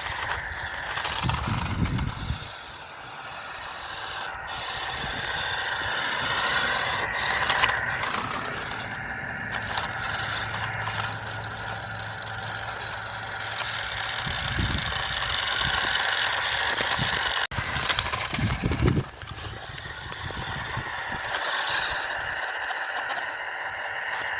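Radio-controlled concrete mixer truck driving over rough ground: its motor and gears running with a steady whine that swells and fades, while the wheels and body scrape and rattle over dirt and rocks, with a few low thumps.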